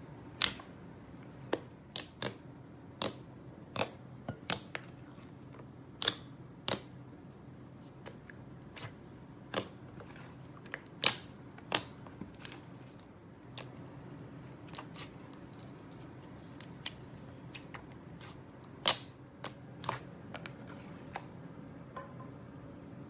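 Glossy slime being pressed and stretched by hand, giving irregular sharp pops and clicks, a few loud ones standing out, over a steady low hum.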